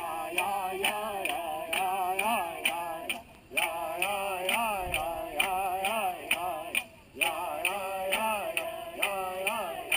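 A man chanting a wavering, sliding vocal line in short phrases, over a steady run of sharp percussive ticks, about three a second.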